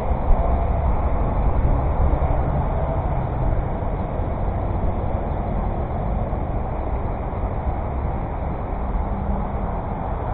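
Steady low rumbling background noise, strongest in the bass, with no clear individual events.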